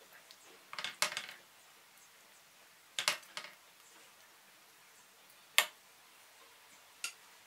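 A wooden spatula knocking and clinking against a white ceramic serving dish and the rim of a steel pot while food is dished up: four short, sharp clinks a second or two apart, the one a little past halfway the loudest.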